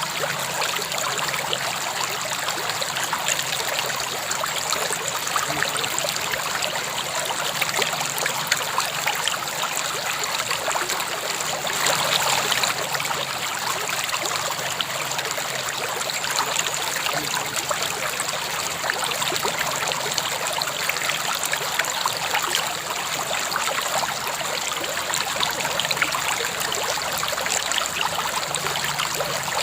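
A river flowing steadily over stones, a continuous rushing and babbling of water with fine splashing detail.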